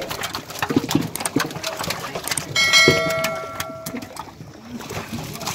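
Live fish flapping in metal pots at the water's edge, with scattered wet slaps and clicks. About two and a half seconds in, a metal pot is knocked and rings for about a second and a half.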